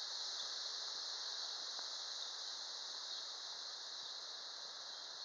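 A steady, even high-pitched hiss that barely changes in level.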